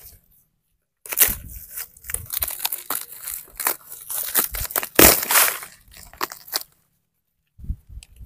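Rotten, crumbly wood being torn and broken apart by a gloved hand: a run of dry crunching and cracking that starts about a second in, is loudest about midway, pauses near the end and then starts again.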